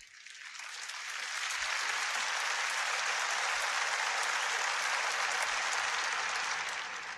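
Audience applauding: the clapping builds over the first second or two, holds steady, then tapers off near the end.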